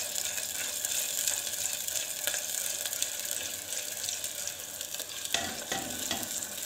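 Chopped onions with ginger-garlic and green-chilli paste sizzling in oil in a clay pot (matka) on a low flame while a silicone spatula stirs them, with a few sharper scrapes about five seconds in. The onions are frying on their way to light brown.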